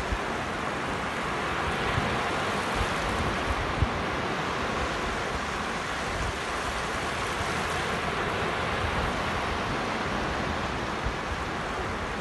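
Sea surf breaking and washing up a sandy beach: a steady rush of waves, with low gusts of wind buffeting the microphone.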